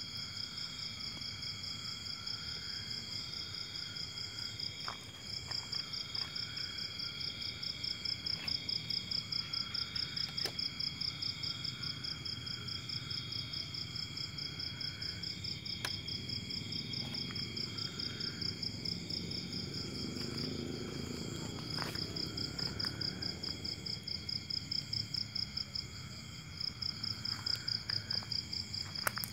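Chorus of chirping insects: several steady, pulsing high-pitched songs layered at different pitches, with a few faint clicks.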